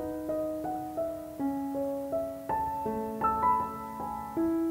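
Background piano music: a slow, gentle melody of single notes, about three a second, over held lower notes that ring and fade.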